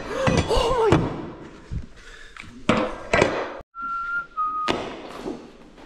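A person whistling two short held notes, the second a little lower than the first, among sharp knocks and thuds of hand work in a bare room.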